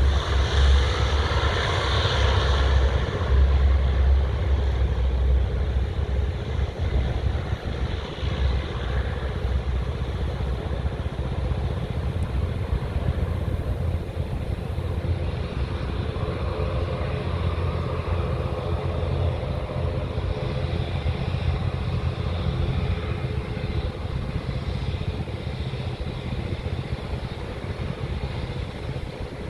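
C-130 Hercules military transport with its four turboprop engines and propellers droning. Loudest in the first few seconds, then fading slowly as the aircraft draws away down the runway and into the air.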